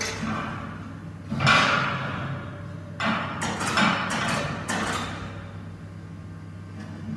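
Steel clanging in a large workshop: four loud metal bangs between about one and five seconds in, each ringing and echoing out, the first the loudest, over a steady low hum.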